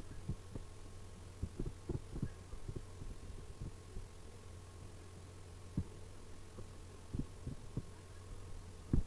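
Steady low electrical hum with about a dozen soft, irregularly spaced low thumps, the loudest near the end.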